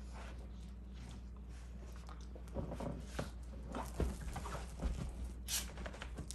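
Two dogs play-wrestling on a fabric couch: scuffling and rustling of bodies and paws on the cushions, busier from about halfway through, with a couple of sharper thumps.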